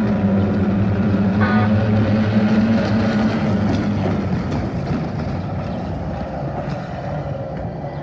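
Racing boat engines running as a steady low drone for about half the time, turning to a rougher noise, and fading out.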